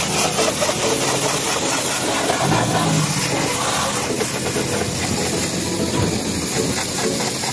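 Pressure washer jet hissing steadily as it sprays a car's rear bumper and the wet ground, with a steady machine drone from the washer running underneath.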